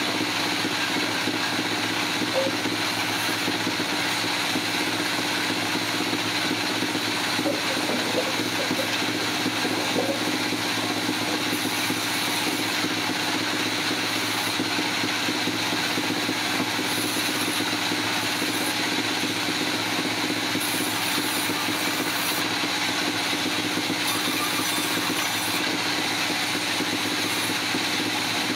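Sawmill machinery running steadily: a continuous engine hum with a steady high whine, level and unbroken.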